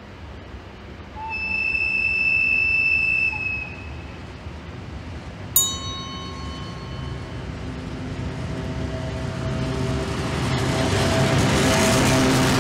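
Lithuanian TEM TMH diesel locomotive hauling a tank-car train gives one steady horn blast of about two seconds. A sharp clank that rings briefly follows about halfway through. The engine then grows louder as the train approaches, loudest near the end.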